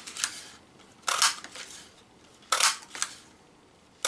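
Stampin' Up hexagon paper punch cutting hexagons out of white cardstock: a sharp click-clunk with each press, three punches about a second and a half apart.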